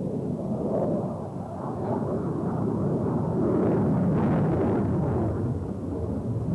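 Piston engine of a WWII-era propeller aircraft droning as it flies low through a tight turn over the runway. It swells to its loudest about four seconds in, then eases off.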